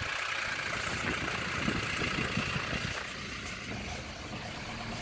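Steady engine and road noise of a vehicle driving slowly along the road, easing slightly about three seconds in.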